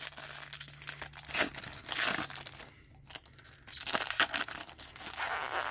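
Foil wrapper of an Upper Deck hockey card pack crinkling and tearing as it is pulled open by hand. The rustling comes in irregular surges, the loudest about two seconds in and another near the end.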